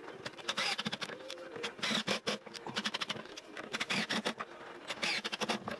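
Cordless drill driving screws through a metal drawer runner into plywood in four short bursts, each a rapid clatter of clicks and scraping.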